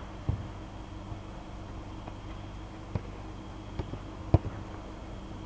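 A football being kicked on artificial turf: a few sharp thuds, the loudest about four seconds in, over a steady hum in the hall.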